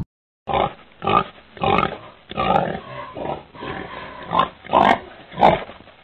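Young domestic pigs grunting, a run of about ten short calls roughly every half second, starting about half a second in.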